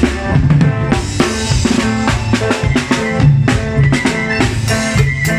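Norteño band playing an instrumental cumbia intro: a drum kit keeps a steady beat over a bass line and a melody.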